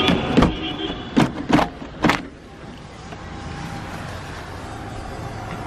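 Maruti Ritz driver's door being unlocked with a key and opened: a few sharp clicks and clunks from the lock and latch in the first two seconds.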